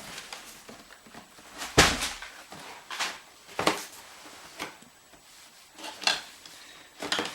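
Cardboard boxes being handled as an inner box is lifted out of a shipping carton: a series of short knocks and scrapes of cardboard, the loudest about two seconds in.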